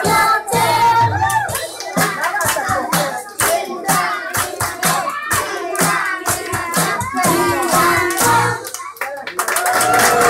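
A children's song with singing plays while hands clap along in time with the beat, a steady run of sharp claps.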